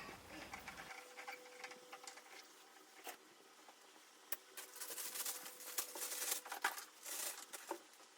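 Clothes being handled and sorted: fabric rustling with scattered clicks and light knocks, busier and louder in the second half.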